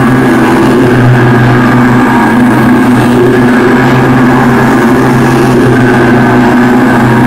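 Loud, steady drone with a constant low hum and a fainter high tone held above it, like a machine running without let-up.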